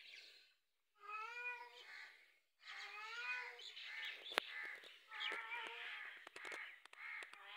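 A cat meowing repeatedly: two long, wavering meows, then a run of shorter, choppier meows in the second half, with one sharp click about four and a half seconds in.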